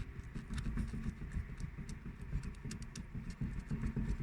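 Knocking in the left front suspension or steering of a Lada Vesta as the wheel is rocked by hand: a run of dull knocks with sharp clicks. The owner suspects a worn ball joint or tie-rod end.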